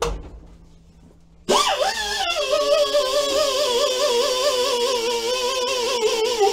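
A knock right at the start, then from about a second and a half in, music with a wavering melody that holds on steadily.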